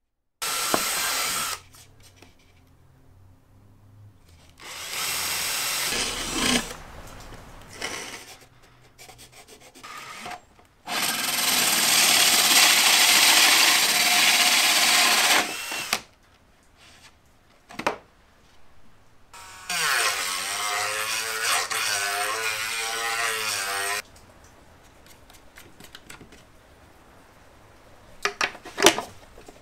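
Power drill spinning a hole saw through the thin wooden wall of the telescope tube, cutting the focuser opening in several separate runs, the longest about four seconds. In one run the pitch wavers as the drill speed changes. Near the end come a few sharp clicks as a screwdriver fastens the focuser base.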